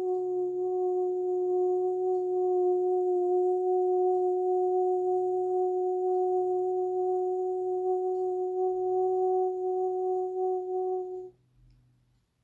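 One steady, held tone with even overtones, ending abruptly about eleven seconds in.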